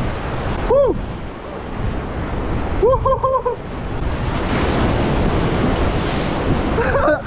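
Sea surf breaking and washing over shoreline rocks, with wind buffeting the microphone. The surge swells about halfway through as a larger wave breaks and its foaming wash carries on.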